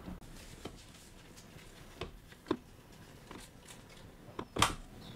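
Plastic monitor stand being pushed into the clip mount on the back of a monitor: a handful of sharp clicks and knocks, the loudest a little before the end, which is taken as the click that shows the stand has locked in.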